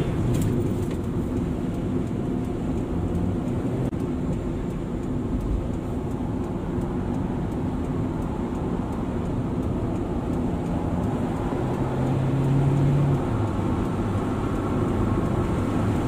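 Steady engine and road noise heard from inside the cabin of a Toyota sedan cruising at highway speed, about 80 to 90 km/h.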